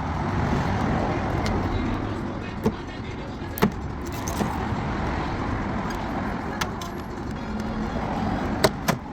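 Steady traffic-like rumble, with a few sharp clicks and taps of wiring and plastic trim being handled, two of them close together near the end.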